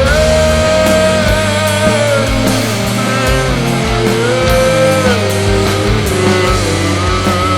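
Rock band playing: a held, gliding lead melody line over distorted guitars, bass and drums with a steady beat.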